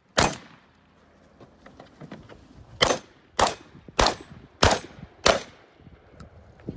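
Benelli M2 semi-automatic shotgun firing six shots at targets. One shot comes right at the start, then after a pause of nearly three seconds, five quick shots about half a second apart, each with a short echo.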